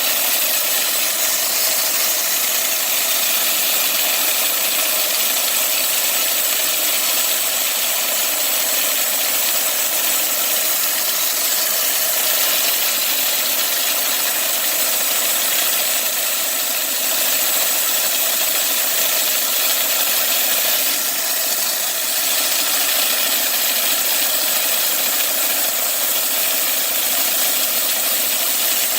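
Homemade bandsaw mill running steadily, its engine and band blade making a constant even noise while it saws through a black walnut log.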